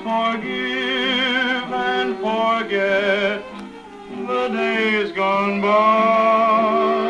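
Arvin portable solid-state record player playing an old record: a singer with a wavering vibrato over accompaniment, with little treble in the sound.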